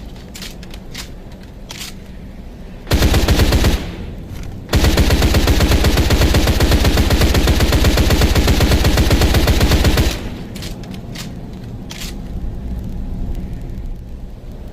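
Thompson submachine gun with a drum magazine firing on full automatic: a short burst about three seconds in, then a long steady burst of about five seconds of rapid, evenly spaced shots, over a low rumble with a few faint clicks before and after.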